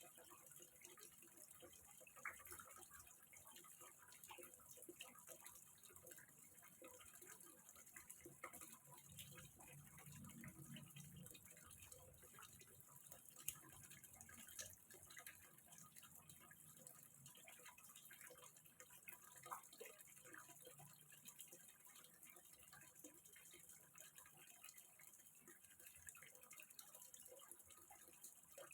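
Faint water trickling and dripping into a small fish pond, an irregular patter of small drops over a steady hiss.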